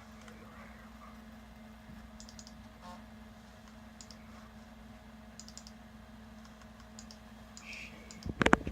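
Faint sharp plastic clicks, several in quick pairs like double-clicks, from a Macintosh SE's mouse button as folders are opened, over the steady low hum of the running computer. Louder knocks come in just before the end.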